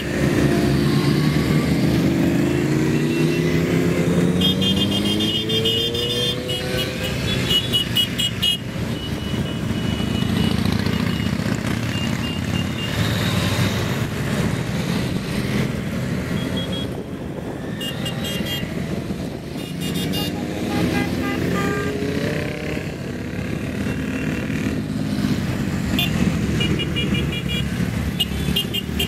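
A convoy of motor vehicles driving past, engines rising in pitch several times as they accelerate, with short horn toots now and then.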